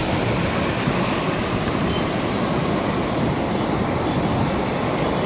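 A fast river rushing steadily, an even wash of water noise.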